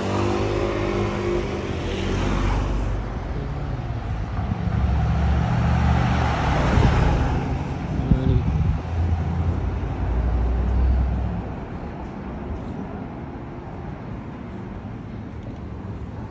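A motor vehicle's engine rumbling low as it goes by on the street. It builds about four seconds in and drops away after about eleven seconds, leaving a quieter street traffic hum.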